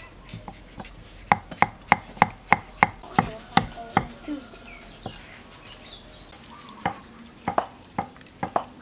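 A knife chopping through peeled bananas onto a wooden board in quick, even strokes, about three a second, slicing them into rounds for banana chips. The strokes pause for a few seconds, then start again near the end.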